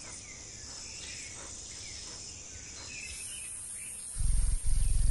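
Outdoor nature ambience: a steady high insect trill with faint, short bird chirps. About four seconds in, a much louder low buzz sets in suddenly and holds.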